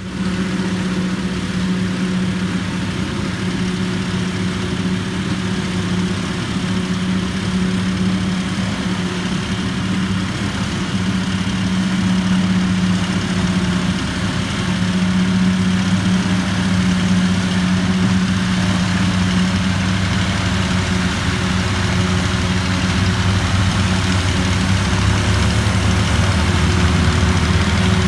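Massey Ferguson 9500 tractors and a tractor-driven forage harvester running steadily while chopping maize: a constant engine drone with a low hum, slightly louder about halfway through.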